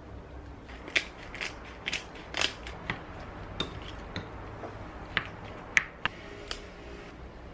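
A seasoning shaker being shaken, then a wooden spoon knocking and scraping against a ceramic bowl as ground pork is mixed. The sound is a string of sharp, irregular clicks and taps, about a dozen in all.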